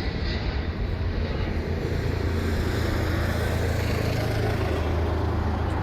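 Steady low vehicle rumble with a broad wash of noise above it, the deep hum growing firmer about two and a half seconds in.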